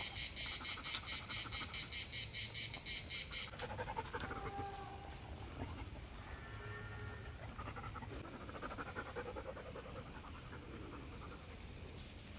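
A dog panting rapidly, about four breaths a second, then stopping suddenly about three and a half seconds in, leaving only faint background sound with a few soft tones.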